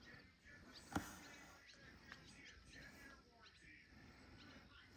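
Near silence: faint outdoor evening ambience with small birds chirping now and then, and one sharp click about a second in.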